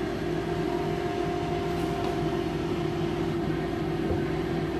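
Air fryer running, its fan giving a steady, even hum.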